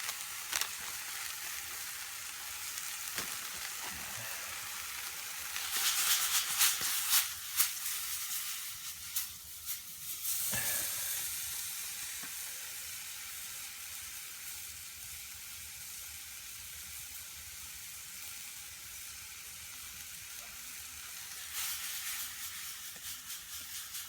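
Chicken and vegetables frying in a wok, a steady sizzle with louder spells of crackling about six to eight seconds in and again near the end, and a single knock about ten seconds in.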